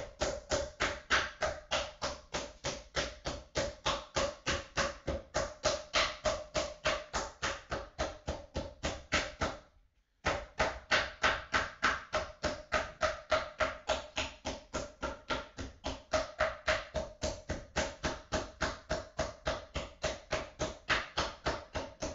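Metal meat mallet pounding butterflied flank steak on a wooden cutting board, flattening it thin: a steady run of about three blows a second, each ringing slightly through the board, with a brief pause about ten seconds in.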